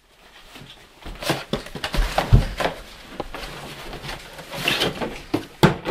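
Handling noises from a large hardbound dictionary and its box: knocks, rustles and a heavy thump a little over two seconds in, with a sharp knock near the end.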